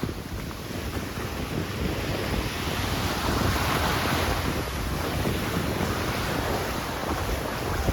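Surf breaking on a beach with strong wind buffeting the microphone; the wash of the waves swells about three seconds in and eases off again.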